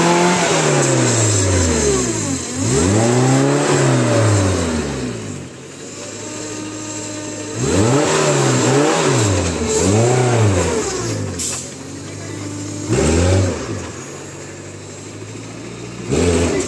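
Off-road-modified Maruti Suzuki Gypsy engine revved hard about six times, each rev rising and falling in pitch, with the engine dropping back to a steady idle between revs as the jeep works its way through a muddy course.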